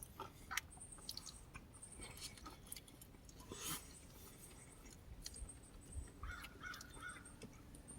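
Faint chewing with small scattered clicks and crunches of fast food being eaten.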